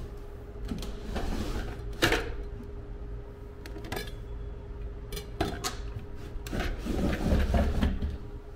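Cabinet drawer slid open with a sharp knock, followed by a few light clicks and rubbing as things inside are handled, then the cabinet's doors are pulled open with a longer rustle. A steady hum runs underneath.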